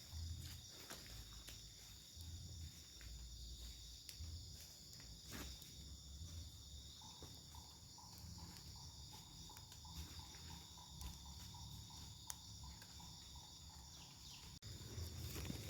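Forest insects trilling steadily, a faint high continuous chorus. About halfway through, a second, lower pulsing trill joins and stops shortly before the end, with scattered soft clicks and rustles throughout.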